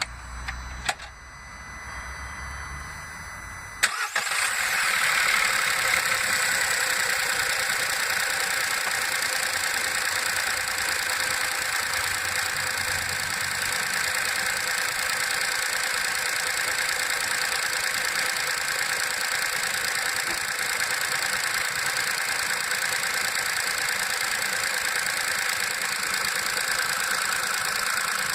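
VW Up! 1.0 MPI three-cylinder petrol engine cold-started. After a few clicks it cranks and catches about four seconds in, then runs at a steady cold idle.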